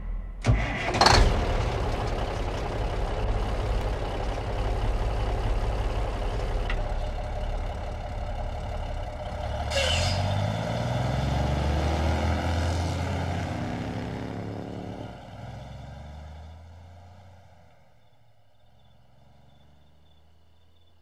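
Semi truck's diesel engine running, with sharp bursts about a second in and a loud air-brake hiss about ten seconds in. The engine's pitch then rises and the sound fades away to a faint hum over the last few seconds.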